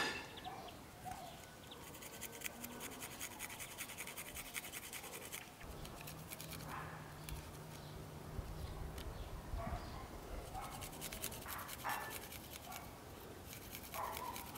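Small metal hand grater rasping in quick, even strokes as something is rubbed across it, in a run of a few seconds, a pause, then shorter runs later. A single sharp knock at the very start.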